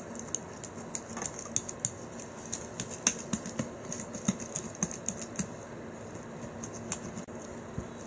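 Snow slime crackling in quick, irregular little clicks as fingers press and work it, busiest over the first five seconds or so, then thinning out.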